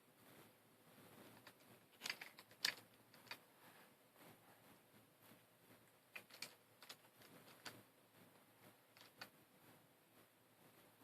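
Scattered light plastic clicks and taps as pieces of a V-Cube 7 puzzle cube are handled and fitted into the half-built cube: a small cluster a couple of seconds in, the loudest among them, then a few single clicks further on. Otherwise near silence.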